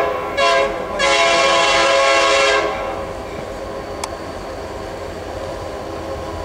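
A freight locomotive's air horn sounding: the end of one blast right at the start, a short blast about half a second in, then a long blast that stops about two and a half seconds in. After that, the steady rumble of the approaching five-locomotive freight train, with one sharp click about four seconds in.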